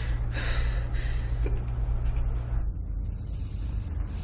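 Steady low rumble and hum, with a woman's shaky, tearful breaths in the first second. Part of the hum drops away a little past halfway.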